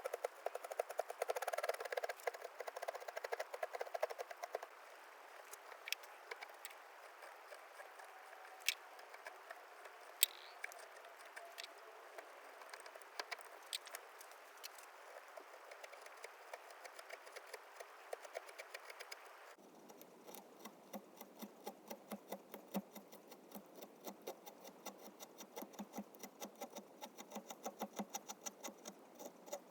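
Hand carving tools cutting cherry wood in small scraping, clicking strokes. The strokes come thick and fast at first, thin out to a few sharp ticks, and after an abrupt change about twenty seconds in settle into a quick, even run of short cuts.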